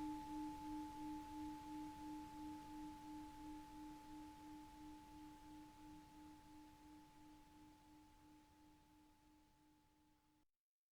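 Tibetan singing bowl ringing out and fading, a low hum with a higher overtone, the low note wavering in slow pulses about two or three times a second. The ring dies away and cuts off to silence near the end.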